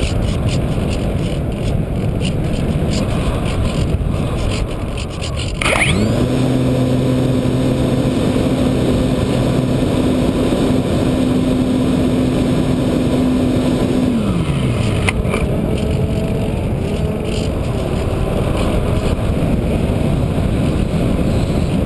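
Wind rushing over the Radian motor glider's onboard camera. About six seconds in, the electric motor and propeller start with a steady hum. They run for about eight seconds, then wind down in pitch and stop, leaving the wind noise of the glide.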